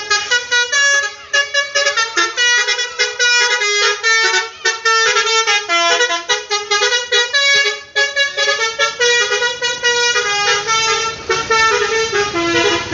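Indonesian bus "telolet" horn, a multi-tone musical air horn, playing a fast melody of short notes over and over, loud and almost without pause.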